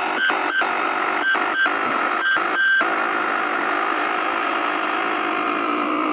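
ProCo RAT and Marshall Guv'nor distortion pedals through a Marshall mini-stack amp, making a dense wash of distorted noise with the guitar strings held silent. It is noise from the pedal chain itself, not guitar feedback. Several short crackling bursts come in the first three seconds, then the noise runs steadily.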